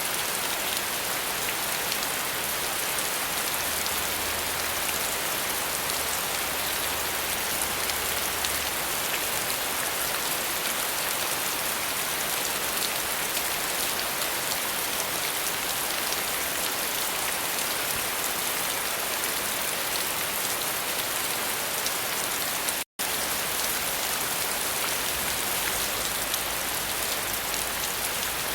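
Steady rain: a dense, even hiss of falling drops, broken once by a split-second gap near the end.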